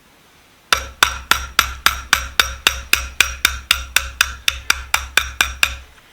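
Hammer tapping steadily on a thin pin punch, about four light strikes a second with a short metallic ring, driving a small copper pin out of a wooden screwdriver handle. The run starts under a second in and stops just before the end, as the pin comes free.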